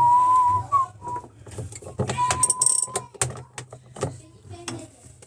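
Clicks, knocks and clinks of tools and parts being handled while a washing machine is worked on. A steady, high whistle-like tone is held for about a second at the start, rising slightly at its end, and comes back for about a second near the middle.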